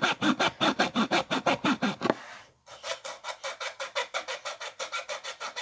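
Hacksaw cutting through wood in quick back-and-forth strokes, a rhythmic rasp about five strokes a second. The sawing stops briefly a little over two seconds in, then carries on more quietly.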